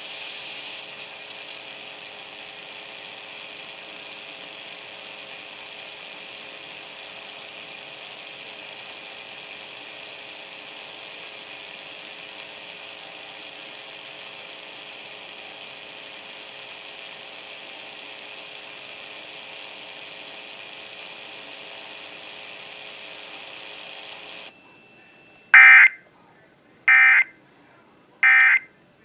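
Steady electrical hum and hiss from a radio feed, which cuts off abruptly most of the way through. It is followed by three short, evenly spaced bursts of Emergency Alert System SAME header data tones, the digital screech that opens an alert message.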